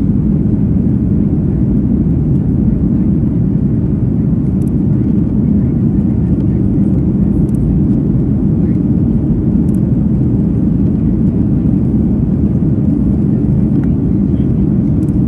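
Steady cabin roar inside a Boeing 737 MAX 9 in the climb after takeoff: the CFM LEAP-1B turbofans and the rush of air over the fuselage, a deep, even rumble heard through the cabin wall.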